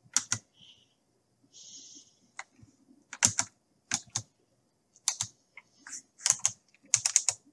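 Clicking of a computer keyboard and mouse: single clicks and quick runs of two to four, sharpest around three, four, five, six and seven seconds in.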